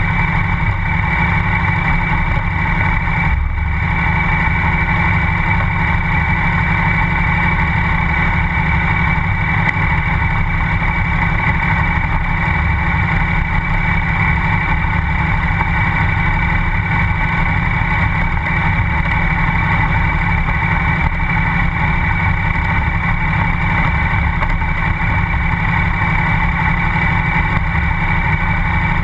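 KTM 990 SMR's V-twin engine running steadily as the bike rides along a gravel track.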